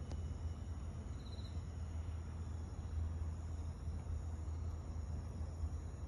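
Cricket trilling once, briefly, about a second in, over faint steady high insect tones and a louder steady low hum.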